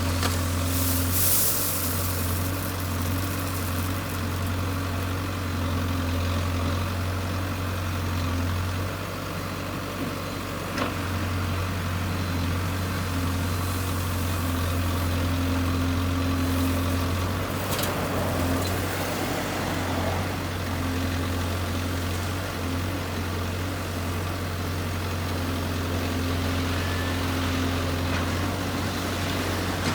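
Diesel engine of a Case backhoe loader running steadily, with a few brief knocks along the way.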